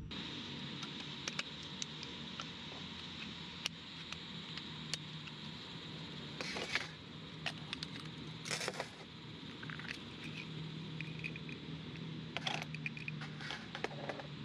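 Small metal parts of a compact camping lantern being handled and fitted together: light clicks and taps throughout, with short scraping sounds about six and a half and eight and a half seconds in and a cluster near the end.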